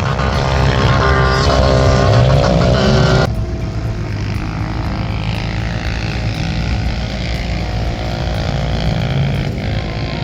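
Motor vehicle engines running loudly, with a rev rising in pitch about three seconds in. The sound then changes abruptly to a steadier engine drone.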